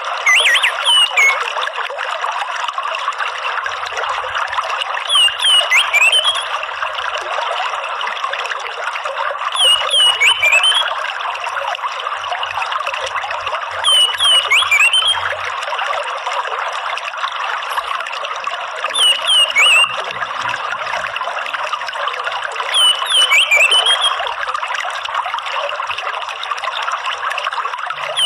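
Steady trickling running water, with short bursts of high, sharp chirps from an orange-headed thrush (anis merah) repeating about every four to five seconds, the 'ngeriwik' chirping call.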